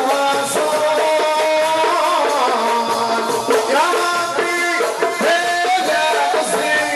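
Aissaoua devotional music: men singing a long-held melody over hand-struck frame drums with jingling rattles.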